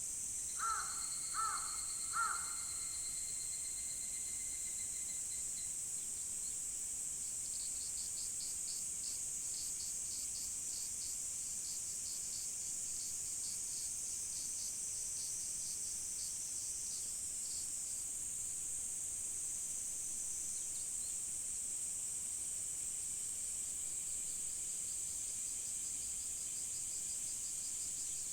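Insects chirring steadily in a high, even drone, while a crow caws three times in quick succession just after the start. A second insect adds a fast pulsing trill for several seconds in the middle.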